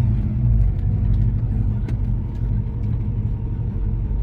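Holden 308 V8 of a VH Commodore running steadily at low revs as the car cruises, a deep even rumble heard from inside the cabin.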